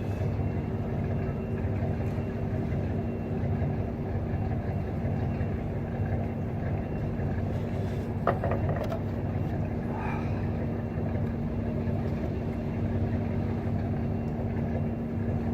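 Steady low engine hum with a constant drone tone, unchanging throughout. A brief knock about eight seconds in.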